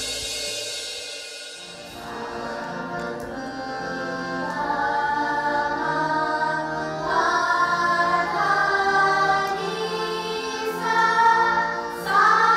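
A group of girls singing together to harmonium accompaniment, the voices coming in about two seconds in over a steady held low note and growing louder toward the end.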